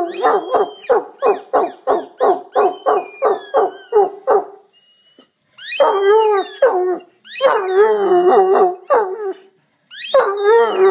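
Irish wolfhound howling ('singing'): a quick run of short hooting calls, about three a second, for the first four seconds or so. After a brief pause come three long, wavering howls.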